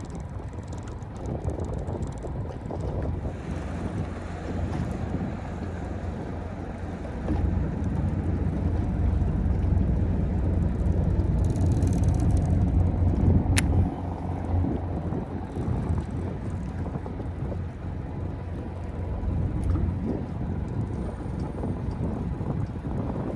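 Wind buffeting the microphone over the low rumble of a small fishing boat on the water, swelling for several seconds in the middle. One sharp click about halfway through.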